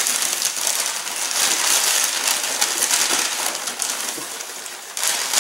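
Packing paper rustling and crumpling as parts are unwrapped, a continuous crackle that eases off about four seconds in and picks up again near the end.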